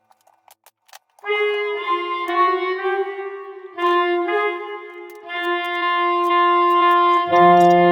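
Background music: a sustained wind-instrument-like melody begins about a second in, and lower bass notes join near the end.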